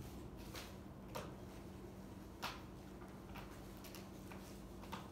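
A handful of faint, irregular light clicks and taps, the clearest about two and a half seconds in, over a steady low hum.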